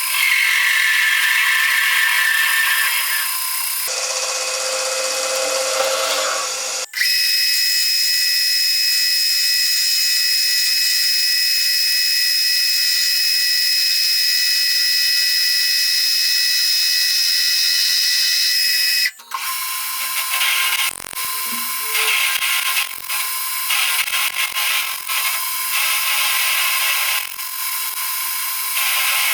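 Metalworking machine tools running and cutting steel, in several abruptly changing stretches. A steady run with a constant high whine lasts about twelve seconds in the middle, then the cutting turns uneven and stop-start near the end.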